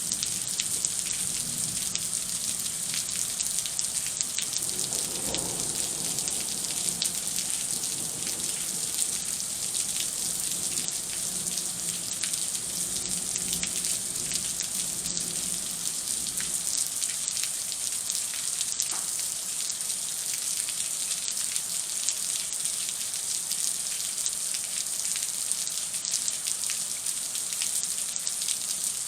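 Heavy thunderstorm rain falling steadily: a dense, even hiss of drops with sharp individual drop ticks. A faint low rumble sits underneath from about four seconds in until about sixteen seconds.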